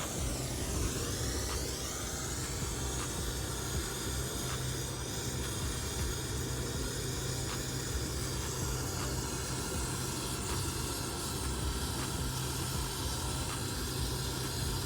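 Torch flame hissing steadily as it heats a copper refrigerant line-set joint toward red hot before solder is applied, with a steady low hum underneath.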